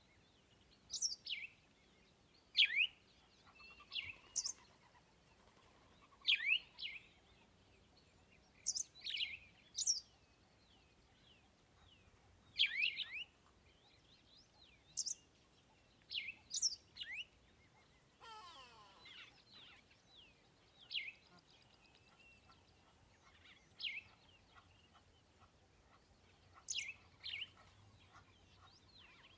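Small birds chirping: short, high, downward-sweeping chirps repeated every second or two, with one longer falling call about 18 seconds in.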